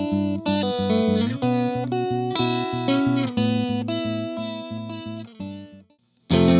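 Electric guitar (Fender Thinline Jaguar through a Vox AC15 amp) playing a repeated picked-note pattern, several notes a second, through a Native Audio Pretty Bird Woman chorus/vibrato pedal. The phrase fades out about five and a half seconds in, there is a brief silence, and a new, louder passage starts near the end.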